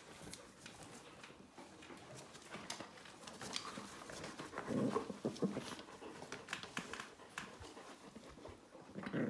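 Dogs and a puppy playing and jostling on a person's lap, with scratching and clicking of claws on cloth and floor. There are brief low dog noises about five seconds in and again near the end.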